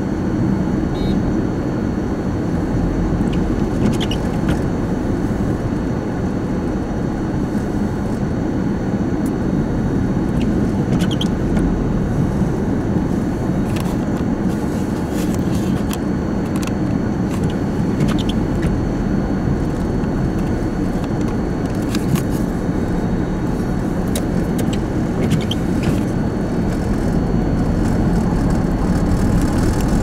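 Steady rumble of slow-moving highway traffic, semi-trucks and cars close by, with a few faint clicks here and there.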